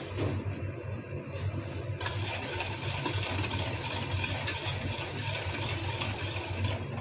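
Stainless steel wire whisk beating a batter of egg, oil and sugar in a stainless steel bowl: rapid metallic scraping and clinking against the bowl, which gets much louder and faster about two seconds in and stops just before the end.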